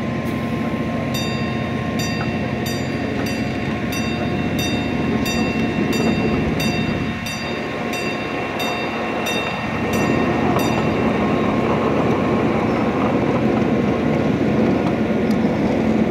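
Miniature ride-on train running with a steady rumble and hum, a bell on it ringing about three strokes every two seconds for the first ten seconds or so, then stopping.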